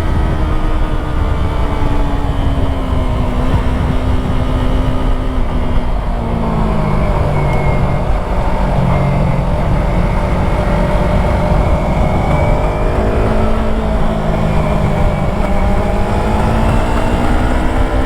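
Yamaha YZF-R3's parallel-twin engine running under way, its pitch rising and falling with the throttle and dropping sharply about six seconds in, as at a gear change. A steady low rumble runs under it.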